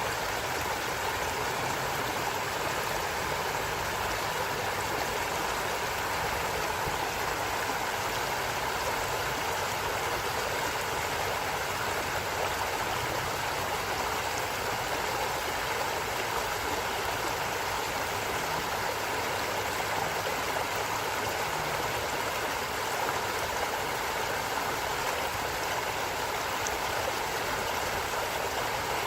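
Stream of water flowing over rocks with a steady, even rushing.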